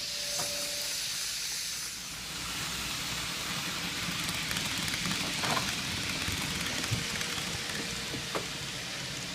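N gauge model train running on the layout track: a steady hiss of wheels and motor, with a few sharp clicks at rail joints or points.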